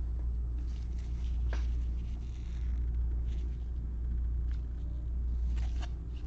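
A steady low hum with a few faint clicks and rustles of trading cards being handled, about a second and a half in and again near the end.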